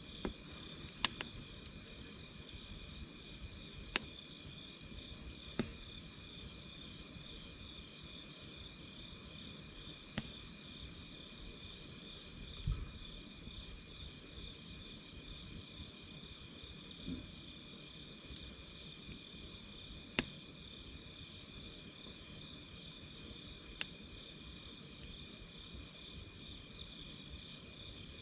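Campfire crackling: sparse sharp pops, about eight over the span, over a steady, high, finely pulsing chirr.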